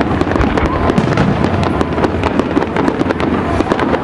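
Aerial fireworks display: a dense, rapid string of bangs and crackles over a continuous low rumble.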